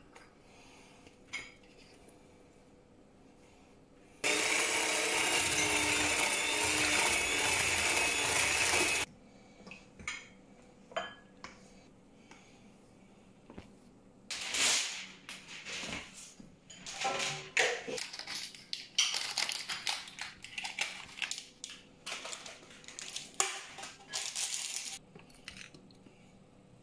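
Electric hand mixer running steadily for about five seconds, then a spatula scraping and clattering against a stainless steel bowl as cake batter is folded.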